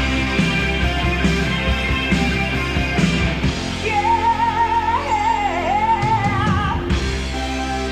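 Background music with a steady beat; about halfway through, a wavering lead melody line comes in for a few seconds.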